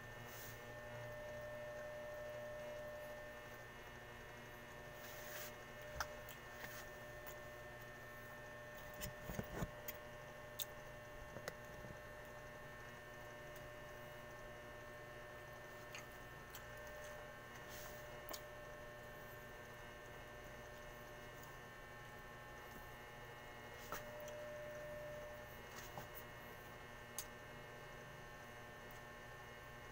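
Steady faint electrical hum, with scattered soft clicks and smacks from eating by hand off a plate, a small cluster of them about nine to ten seconds in.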